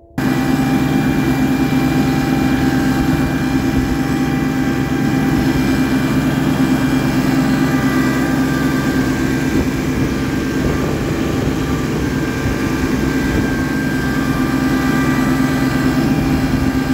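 Compact loader tractor's engine running steadily under load, dragging a 25-foot black spruce log over snow, heard loud from the driver's seat.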